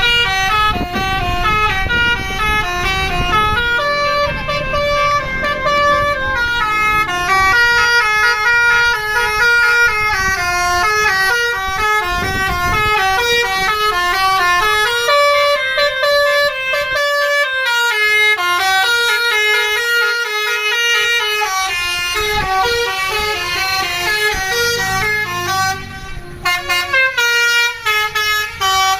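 Bus 'telolet' multi-tone air horn playing a fast melody of stepped notes, several notes a second, in repeated runs. A low rumble sits underneath in the first half.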